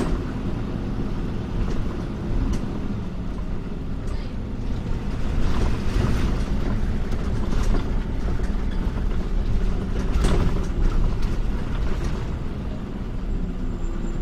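Scania OmniCity city bus's five-cylinder diesel engine idling steadily, with a few brief louder mechanical sounds through it.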